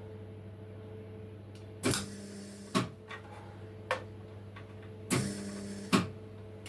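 Welder laying two short tack welds on the steel exhaust silencer, each a burst of about a second of arc sizzle with the wire feed whirring, starting and stopping with a click. A steady hum runs underneath.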